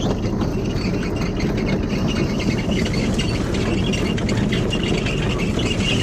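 Hagedorn Wisent potato harvester at work, its rod-link sieve chains and separating webs clattering steadily, with the towing tractor's diesel engine running underneath.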